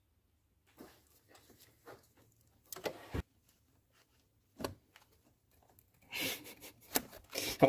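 Scattered metallic clicks and knocks of a wrench being fitted onto and turned on an engine-mount bolt, with glove and tool scraping. They come busier and louder in the last two seconds.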